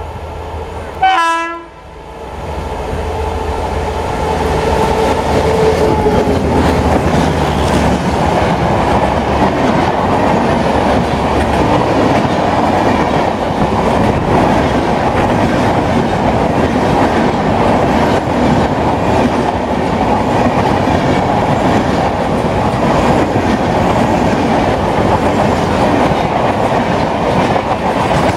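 A short blast from a WAP7 electric locomotive's horn about a second in, followed by the passenger train rushing past at speed. The coaches' wheels clatter steadily over the rail joints.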